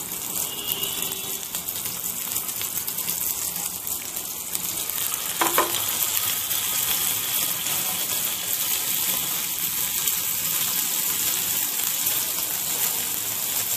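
Marinated chicken pieces sizzling on a hot ghee-greased grill pan, a steady frying hiss. A short knock comes about five and a half seconds in, and the sizzle is a little louder after it.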